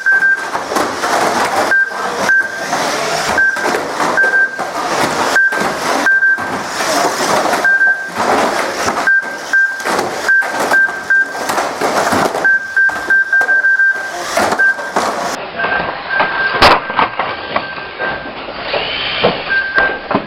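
Radio-controlled banger cars racing: a busy clatter of knocks and mechanical noise, with short high beeps repeating at irregular intervals throughout.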